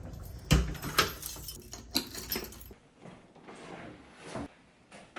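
A series of sharp clicks and knocks over a low rumble, then softer knocks and rustling of things being handled.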